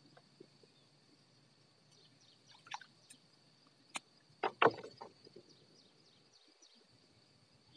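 Steady high chirring of insects, with a few scattered knocks and a louder cluster of knocks about four and a half seconds in.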